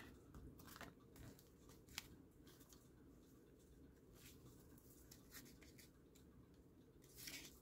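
Near silence with faint rustles and light taps of old paper pages being handled and laid on a cutting mat; one sharper tick about two seconds in.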